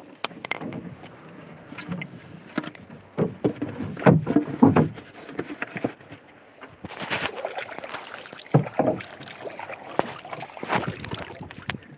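Irregular rustling and knocking as a plastic sack of fish and a plastic bag are handled up close on a wooden boat, with the loudest bursts a few seconds in and again past the middle.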